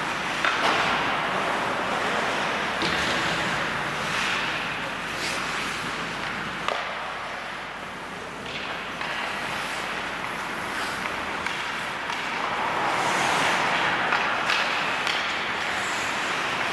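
Ice hockey play: a steady hiss of skate blades scraping and carving the ice, broken by several sharp clacks of sticks striking the puck.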